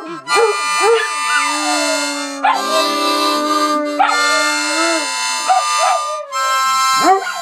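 A harmonica playing long held chords while a Doberman howls along with it in short wails that rise and fall in pitch.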